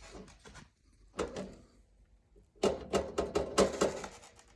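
The kinked cover of a Suburban water heater rattling and clicking against the unit: one knock about a second in, then a quick run of rattles lasting about a second and a half. The bent cover does not sit flat against the body, so it rattles.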